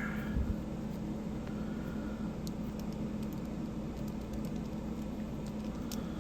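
Steady low background hum and hiss, with a few faint light clicks about two and a half seconds in and again near the end.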